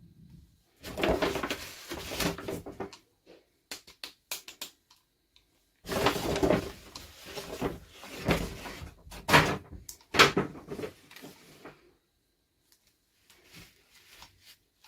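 Toy packaging being handled and opened by hand: two stretches of rustling and scraping, the second with a few sharp clicks.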